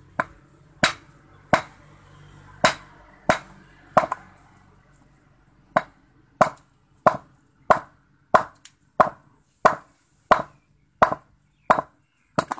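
Steel claw hammer striking a hand-held rock on concrete, chipping it apart: about eighteen sharp blows, evenly spaced about two-thirds of a second apart, with a pause of a second and a half about a third of the way through.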